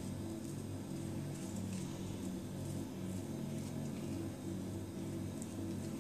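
Soft background music, with faint scrapes of a butter knife spreading butter on a slice of bread.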